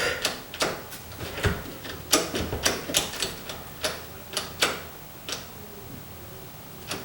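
Freshly mounted smart door lock being worked by hand, giving a series of sharp, uneven clicks and taps about two a second that die away after about five seconds. The lock is not responding.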